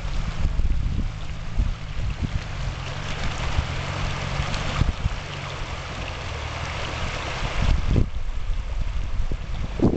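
Land Rover Discovery engine running with a low, steady drone as the vehicle climbs out of a river, over the rushing of the river water. Wind buffets the microphone a couple of times near the end.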